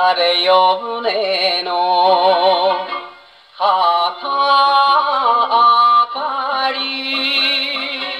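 HMV 102 portable wind-up gramophone playing a 1958 78 rpm record of Japanese popular song: a man singing with heavy vibrato over instrumental accompaniment. The sound is thin, with no deep bass, and has a short break between phrases about three seconds in.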